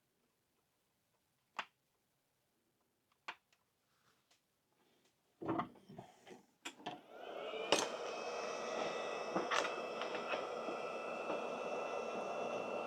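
Two sharp clicks, then a few handling knocks, then a hot-air rework station's blower starts: its whine rises briefly as the fan spins up and settles into a steady rush of air with a high whine, heating the PS5 circuit board for soldering.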